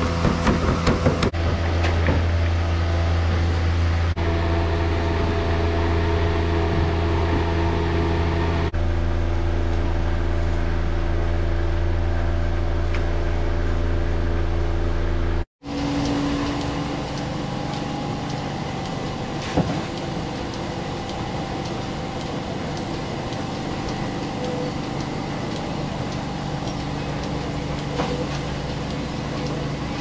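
Steady mechanical hum of barn machinery, a low drone with several steady tones. About halfway it breaks off for an instant and comes back quieter, with a different pitch.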